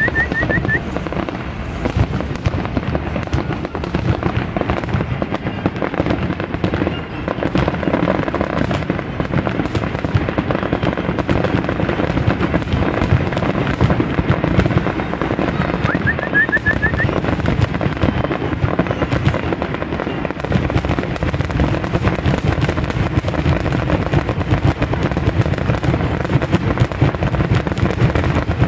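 Aerial fireworks shells exploding in a rapid, continuous barrage, overlapping bangs and crackle with no pause between them.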